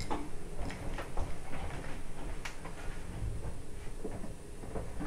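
Faint footsteps and small scattered knocks and clicks of a person moving about a room.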